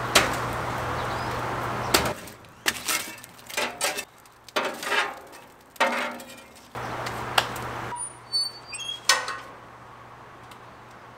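Split logs knocking and clattering into the steel firebox of an offset smoker, with a fire poker knocking and scraping the burning wood in a quick series of sharp strikes. Near the end the heavy steel firebox door clanks shut.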